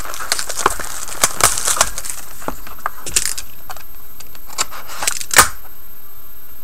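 Cardboard trading-card box and its packaging being handled and opened: irregular sharp clicks, taps and crinkles, the loudest about five seconds in. It stops shortly after, leaving only a steady hiss.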